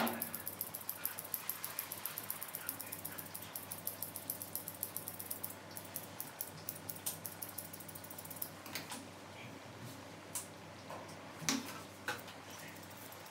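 Grooming shears snipping through a poodle's curly coat: a quick run of about four or five snips a second that thins out to a few scattered snips in the second half.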